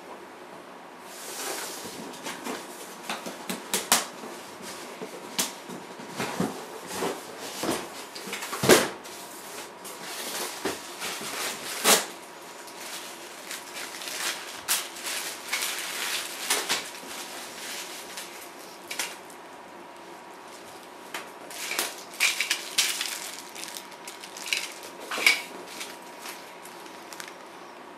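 Cardboard box being opened and handled, with sharp knocks and scrapes of the carton, then plastic parts bags crinkling as they are unpacked and set down on a table.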